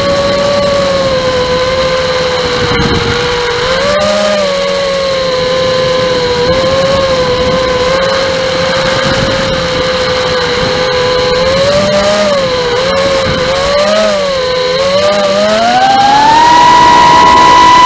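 Furibee Darkmax 220 FPV racing quadcopter's motors whining in flight, the pitch wavering up and down with the throttle, then climbing to a higher, louder whine near the end.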